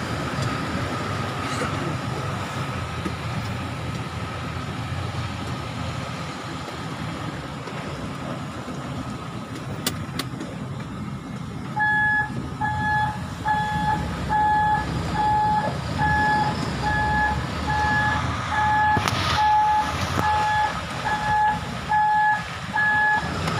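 MAN TGS truck's diesel engine running, heard from inside the cab. About twelve seconds in, a reversing alarm starts up: a steady, high beep repeating about three times every two seconds, louder than the engine.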